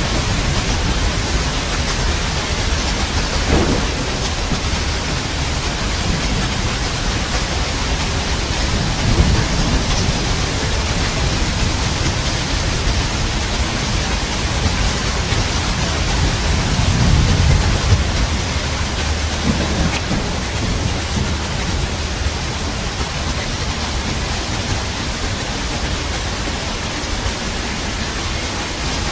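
Steady heavy rain with low rolls of thunder rumbling up several times, strongest about two thirds of the way through.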